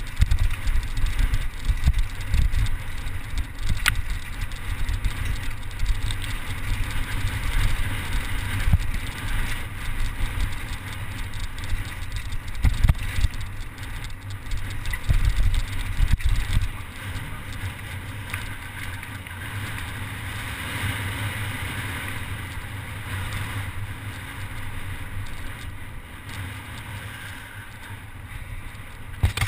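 Mountain bike ridden fast down a rocky, cobbled trail: wind buffeting the camera's microphone, with frequent knocks and rattles as the bike jolts over the stones. About halfway through it settles into a quieter, even hiss of tyres rolling on gravel.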